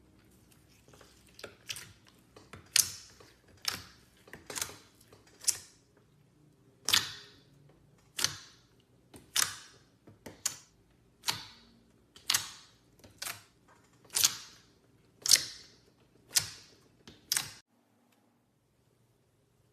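Clear slime being pressed and worked by hand, giving sharp crisp pops about once a second, each with a short hissy tail. The pops stop suddenly near the end.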